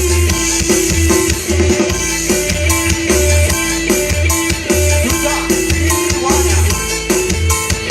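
Music with a deep, repeating bass-drum beat and percussion played loudly through a DIY speaker box built from a water barrel.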